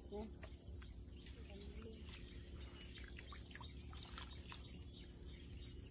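Crickets chirping in a steady, high-pitched drone, with scattered light clicks and rustles from grass being handled in pond water.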